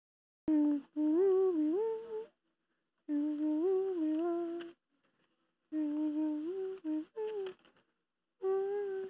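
A single voice humming a gentle tune in four short phrases, with brief pauses between them.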